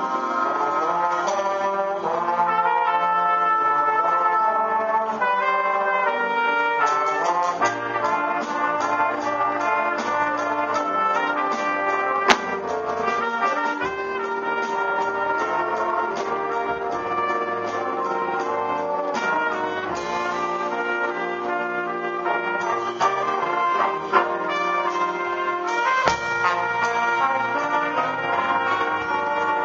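School jazz band playing, the brass and saxophone sections sounding full chords with a featured trumpet out front, backed by piano and drum kit. A single sharp drum or cymbal hit stands out about 12 seconds in.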